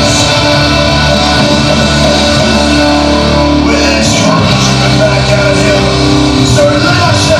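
Loud rock music with guitar, playing steadily; the bass notes change about four seconds in.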